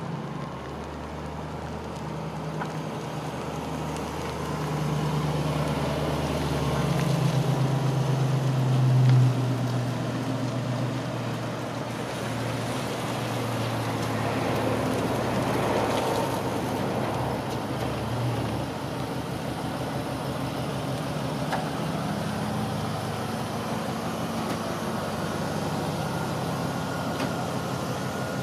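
A 2004 Chevrolet SSR's supercharged 5.3-litre V8 running as the truck drives slowly toward the microphone, growing louder to a peak about nine seconds in. It then settles to a steady idle once the truck has pulled up.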